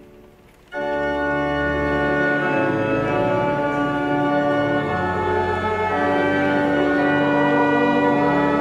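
Church pipe organ playing loud, sustained full chords. It comes in suddenly about a second in, after a moment's pause, and the chords change every second or two.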